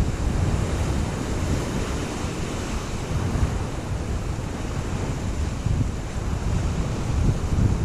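Ocean swell surging and breaking against the base of a sea cliff, heard from high above, with wind buffeting the microphone in uneven gusts.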